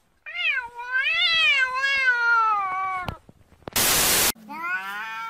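A blue-grey cat gives one long, drawn-out meow of about three seconds that rises and falls in pitch. A short burst of loud static hiss follows, and then another cat's meow begins near the end.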